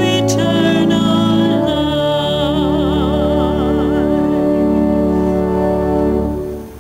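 Organ music: the closing held chords of a hymn, with a wavering vibrato note above the chord for a couple of seconds, then dying away about six and a half seconds in.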